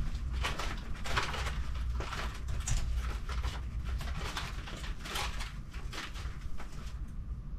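Clear plastic bags holding banknotes rustling and crinkling as they are handled, in a continuous run of irregular crackles, over a low steady hum.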